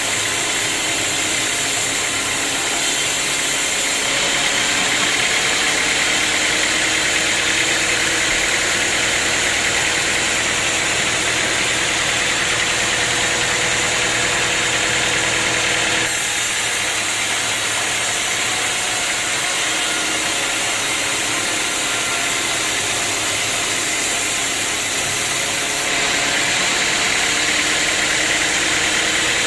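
Sawmill machinery running steadily: a constant mechanical drone with a high, even whine and hiss. The sound changes abruptly three times, about 4, 16 and 26 seconds in.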